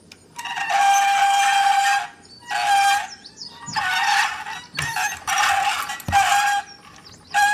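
Battery-powered Thomas and Friends toy train playing its electronic sound effect through a small speaker: one long tinny burst, then several shorter ones, each holding a steady high tone. The owner finds the sound not very active and thinks the battery needs changing.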